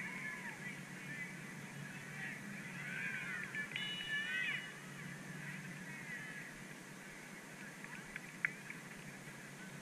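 Geese honking in the distance, a run of curved calls strongest about three to four and a half seconds in and fainter afterwards, over a steady low hum. A single sharp click about eight and a half seconds in.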